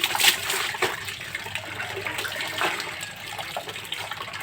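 Water sloshing and splashing in irregular strokes as laundry is washed by hand, with the strongest splash just after the start.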